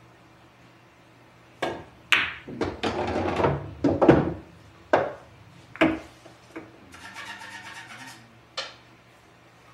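Pool balls being played on a pool table: a quick run of sharp clacks with rolling about two seconds in, then several single clicks spaced a second or so apart, and a short stretch of scraping near the end.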